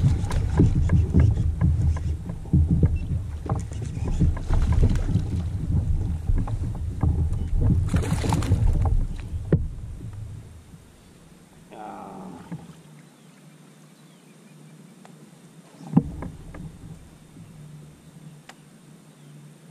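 Movement and handling noise aboard a fishing kayak: a low rumble crowded with small knocks and clicks. About ten seconds in it drops away to a faint steady hum, broken by a short wavering sound and one sharp knock.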